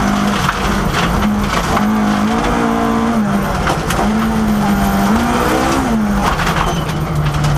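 Ford Escort Mk II rally car at speed on a gravel stage, heard from inside the cabin. The engine revs climb and drop a couple of times as the driver works the gears, over a steady gravel rush with sharp clicks of stones striking the car.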